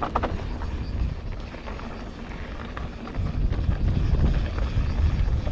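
Wind buffeting the camera microphone, mixed with the rumble of mountain bike tyres rolling down a dirt and gravel trail; the rumble gets louder about three seconds in. A brief squeak and a few clicks sound right at the start.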